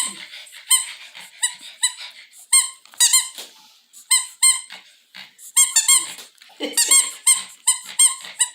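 Squeaky toy ball squeezed again and again, giving quick runs of short, high squeaks, several a second, with brief pauses between the runs.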